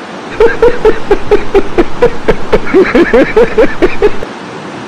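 A man laughing loudly in a long run of quick "ha-ha" bursts, about five a second, which stops suddenly a little after four seconds in.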